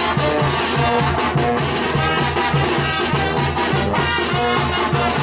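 Mexican banda (brass band) music playing, with brass melody over a steady, even bass beat and drums.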